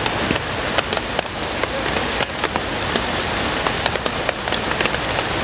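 Heavy rain falling steadily: an even hiss with many sharp individual drop hits.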